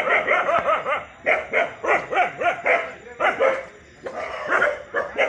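A dog barking repeatedly in quick runs of short barks, with brief pauses between the runs.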